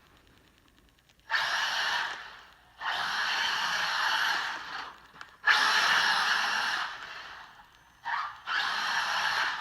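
Electric RC race truck (Arrma Senton 6S) driven in bursts of throttle: its brushless motor and drivetrain whine with tyre noise in four spells of one to two seconds each, the last one briefly broken.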